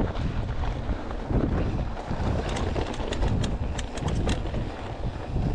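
Mountain bike riding a dirt trail, with wind buffeting the action camera's microphone and tyre rumble underneath. A quick run of clicks and rattles comes from about two and a half to four and a half seconds in, as the bike goes over rough ground.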